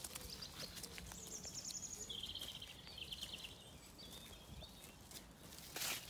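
Sheep cropping grass close by, a stream of short tearing clicks and rustles, with a louder rustle just before the end. A songbird sings two quick trilled phrases in the background, the first higher, the second lower and longer.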